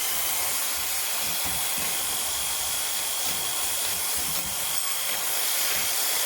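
Power tool running steadily: a continuous high whine over a hiss.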